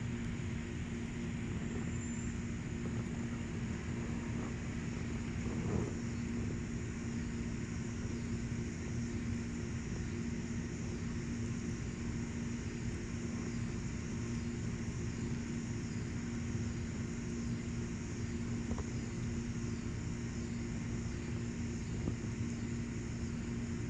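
Steady low mechanical hum and rumble, with a constant droning tone that holds one pitch.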